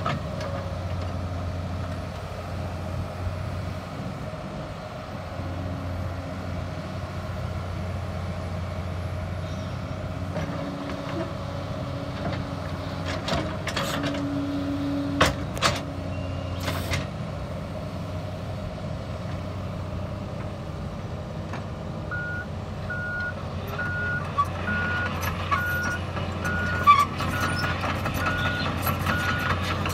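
2004 Caterpillar 320C excavator's six-cylinder diesel engine running steadily while the boom and bucket are worked, with a few sharp knocks midway. About two-thirds of the way through, its travel alarm starts beeping at an even pace as the machine moves on its tracks.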